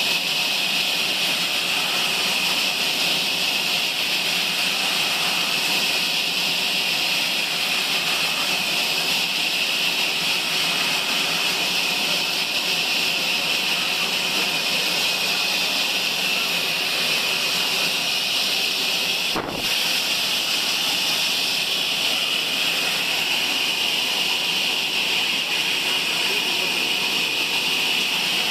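Sawmill saw running steadily with a loud, even hiss that holds throughout, broken once by a very short dropout about twenty seconds in.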